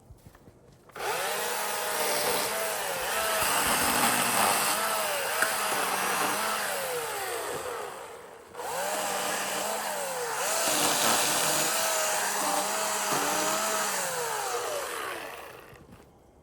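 Husqvarna 350i battery chainsaw cutting through a downed tree in two runs with a short break between them. The motor's whine repeatedly dips and recovers as the chain loads up in the wood.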